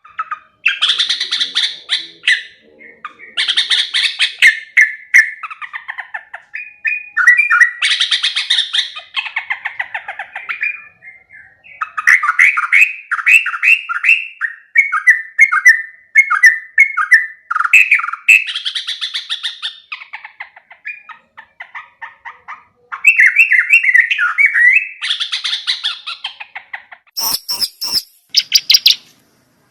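Yellow-vented bulbul (trucuk) singing: bursts of rapid, bubbly chattering phrases repeated with short pauses, mixed with higher harsh notes, and a few sharp scratchy bursts near the end.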